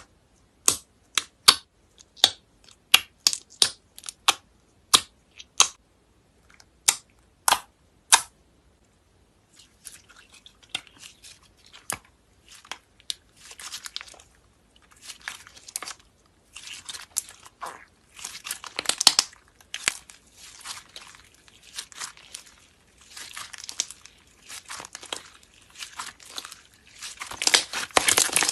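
Purple slime being handled: sharp pops about twice a second for the first eight seconds, then crackling, crinkling squishes that grow louder near the end.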